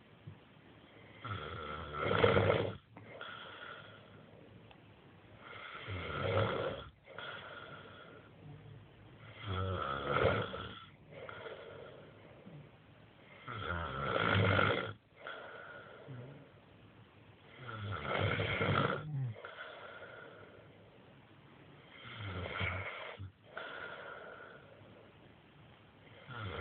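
A sleeping man snoring in a steady rhythm: about seven rasping snores, each a second or so long, spaced about four seconds apart, with a softer breath sound between them.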